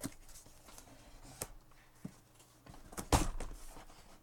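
Cardboard shipping box being handled: a few light knocks and rustles, then one louder thump about three seconds in as it is set down or bumped.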